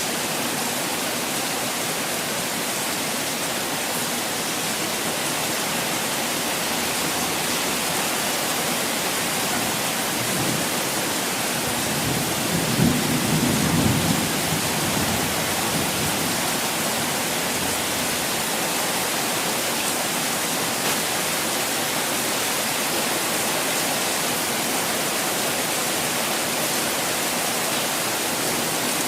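Steady hiss of constantly falling water, like rain, with a brief low rumble about halfway through.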